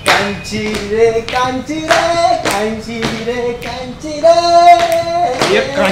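A voice singing a song in long held notes over a sharp, steady beat of about two strokes a second.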